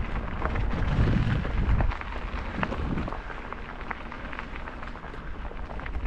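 Wind buffeting the microphone as a low rumble, heaviest in the first two seconds and easing after, with scattered small clicks and crackles.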